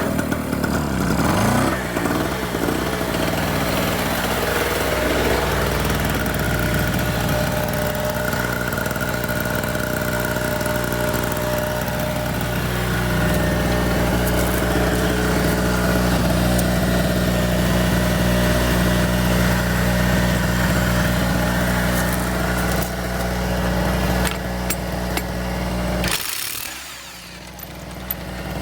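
Harbor Freight 900-watt two-stroke gas generator running steadily. Its engine pitch shifts in the first couple of seconds, and the sound dips briefly near the end.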